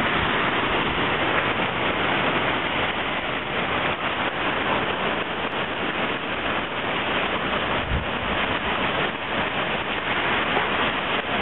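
Heavy rain falling on a wet, flooding street, a steady hiss of water on pavement.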